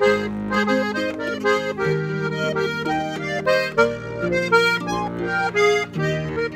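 Zupan diatonic button accordion (Steirische Harmonika) and harp playing a traditional Tyrolean folk tune together, an instrumental interlude with held accordion chords and plucked harp notes.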